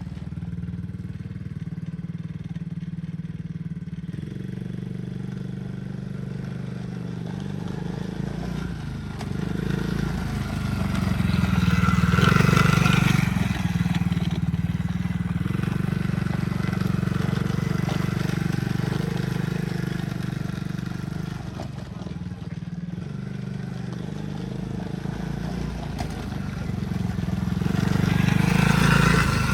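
Tao 110cc ATV's small single-cylinder four-stroke engine running steadily, getting louder twice as it is given more throttle: once about ten to fourteen seconds in, and again near the end.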